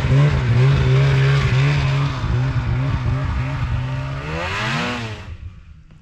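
Snowmobile engine running under throttle with a wavering pitch. It revs up near the end and cuts off about five seconds in.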